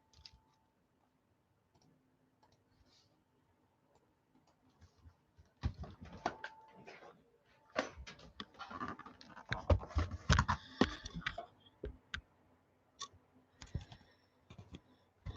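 Computer keyboard typing and mouse clicks in irregular bursts, busiest in the middle, after a few seconds of near silence, as an online randomizer is set up.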